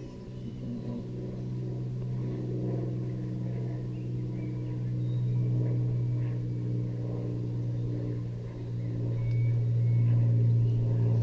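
Honey bees buzzing over an open hive during an inspection: a steady low hum that grows louder near the end.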